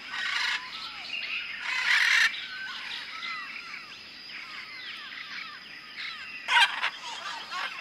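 Many rainforest birds calling over one another in short chirps and whistles, with louder harsh calls about two seconds in and again near the end. A thin, steady high tone runs underneath.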